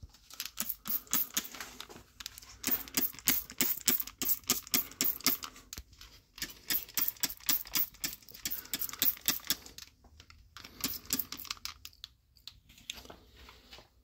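Rapid, irregular clicking and tapping in quick runs, with short breaks near the middle and toward the end.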